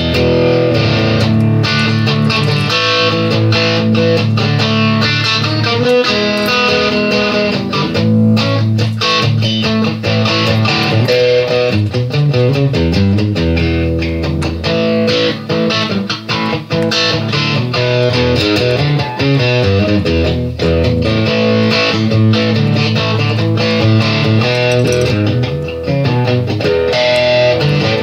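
Background instrumental music led by guitar, with a bass line underneath.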